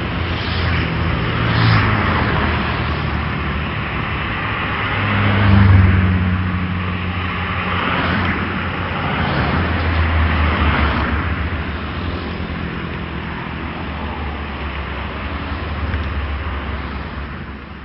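City road traffic: a steady low hum of engines with cars passing, swelling loudest about six seconds in and again around ten seconds, then fading out near the end.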